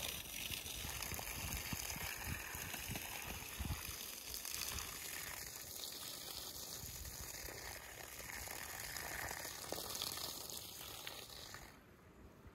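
Water jetting from a garden hose and splashing onto grass and plants: a steady hissing spray that cuts off abruptly near the end.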